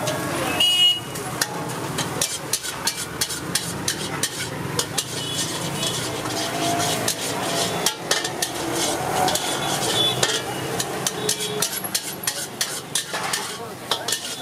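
Metal ladle and spatula scraping and clanking against a wok as veg fried rice is stirred and tossed, many quick irregular knocks with an occasional brief metallic ring, over a steady sizzle of frying.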